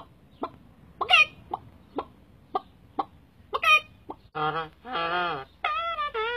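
A person imitating a chicken with the mouth: short sharp clucks about twice a second, two of them breaking into high squawks. In the last couple of seconds they give way to a longer wavering call.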